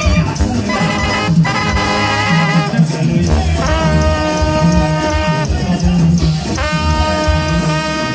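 Brass band music playing, with two long held chords over a pulsing bass line.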